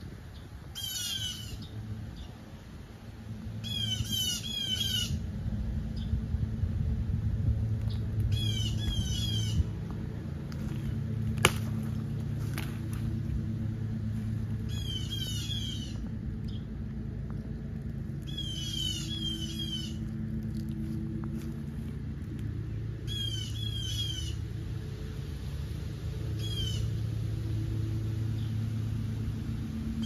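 Birds giving harsh alarm calls in short bursts of rapid notes that fall in pitch, repeated every few seconds: scolding a snake they have spotted. A steady low rumble runs underneath.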